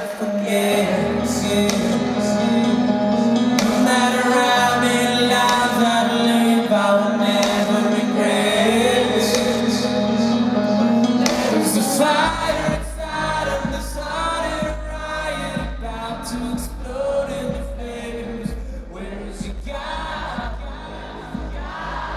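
Live rock band music with singing, recorded in a concert arena. About twelve seconds in, the full sung passage drops away, leaving a low held bass note under sparser sounds.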